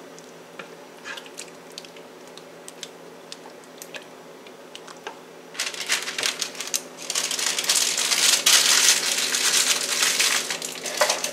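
Light clicks and scrapes of a wooden spoon stirring a pot of thick creamy filling, then about halfway through a loud, dense crinkling of plastic packaging being handled for several seconds.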